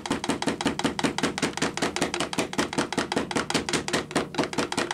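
Homelite chainsaw body held upside down and rapped against a cardboard-covered workbench in a fast, even run of knocks, about eight a second. It is being tapped to shake a broken-off oil hose and duckbill valve out of the chain oil tank.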